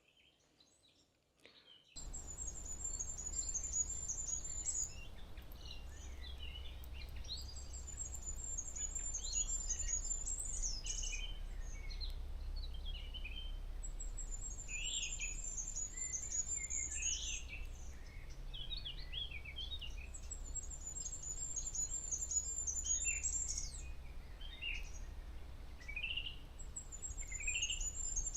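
Woodland songbird chorus of goldcrest, blackbird, blackcap, willow warbler and chaffinch. A thin, very high song comes back about every six seconds over scattered lower song phrases. It starts abruptly about two seconds in, after near silence.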